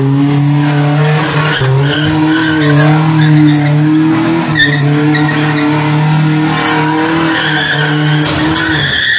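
Pickup truck's engine held at high revs while its tyres skid as it spins in circles. About eight and a half seconds in, the engine note falls away and a high tyre squeal takes over.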